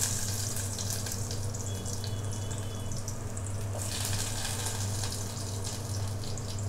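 Chopped onions sizzling in hot oil in a steel pot: a steady frying hiss with fine crackles, over a steady low hum.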